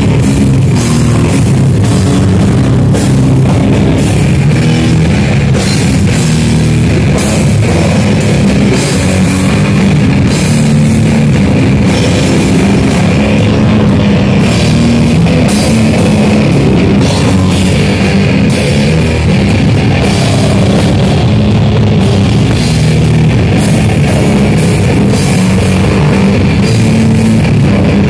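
Live rock band playing loud: electric guitar over a drum kit, with frequent cymbal hits.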